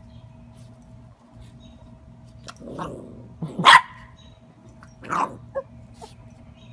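Puppy barking at an earthworm it is lunging at: a low growl about three seconds in, then a loud sharp bark, and two shorter barks about a second and a half later.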